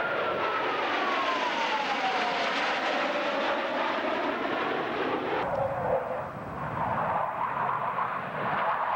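Jet airplane flying past, a steady roar with a whine that falls steadily in pitch as it goes by; about five and a half seconds in, the high part of the roar drops away.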